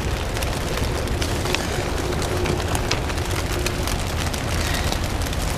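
Rain tapping on the plastic sheeting of a small shelter, many small sharp ticks over a steady low wind rumble.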